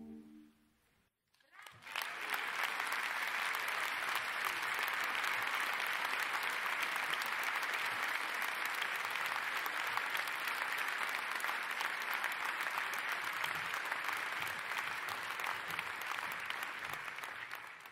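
Concert audience applauding: a held final chord dies away in the first second, then after a brief hush dense, steady applause breaks out and fades away near the end.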